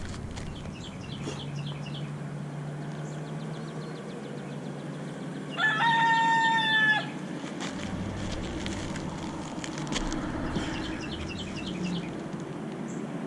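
A single loud, held pitched call or honk lasting about a second and a half, midway through, over a steady low hum, with faint rapid high chirps before and after it.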